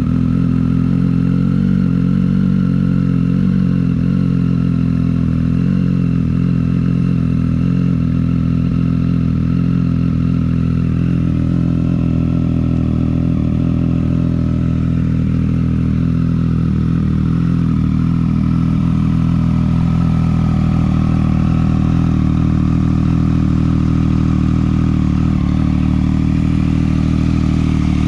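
Triumph Street Triple 765's three-cylinder engine idling steadily through a Toce Performance slip-on exhaust, just after a cold start. The idle note eases slightly lower partway through as the engine settles.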